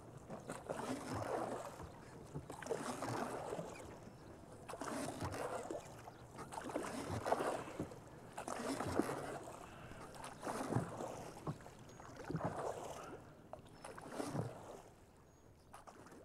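Oars of a small rowboat dipping and pulling through the water, one stroke about every two seconds, eight strokes in all, with the last ones fading away near the end.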